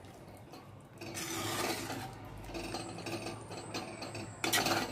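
Steel spoon scraping and stirring thick chicken masala against the rough inside of an unglazed clay pot, in uneven strokes that start about a second in, with a louder scrape near the end.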